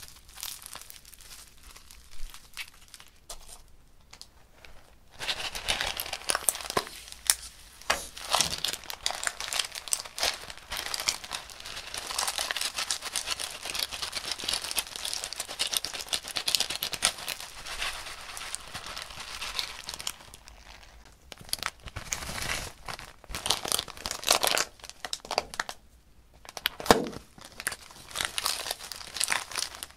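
Foam-bead slime squished and kneaded by hand with soft crackles, then thin plastic bags crinkling and rustling as bags of foam balls and sequins are handled and their contents poured into a glass dish, in a dense spell from about five seconds in. More bag crinkling comes in bursts near the end.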